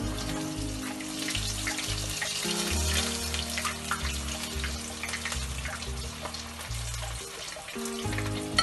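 Potato tikki frying in hot oil in a frying pan, the oil sizzling with a steady crackle, over background music with steady low notes that change every second or so.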